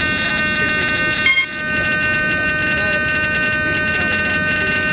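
A steady, loud buzz made of many high steady tones, with faint voices beneath it. About a second in, a short beep sounds and the buzz dips briefly before returning.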